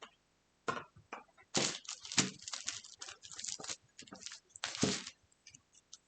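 Packaging being handled, a string of irregular crinkles and rustles, loudest from about one and a half to five seconds in.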